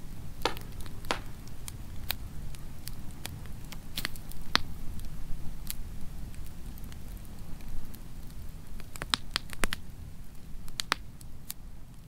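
Wood campfire burning, with irregular sharp pops and crackles from the logs over a low steady rumble.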